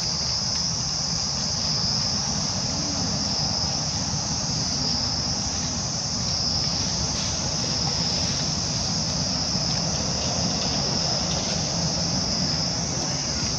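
Steady, unbroken high-pitched insect chorus, with a low steady rumble underneath.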